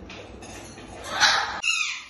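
Caique parrots calling from the nest box: a harsh, raspy call about a second in, then rhythmic raspy calls repeating about twice a second.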